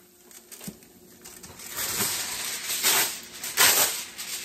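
A sheet of aluminum foil pulled off its roll, crinkling and rustling, loudest near the end.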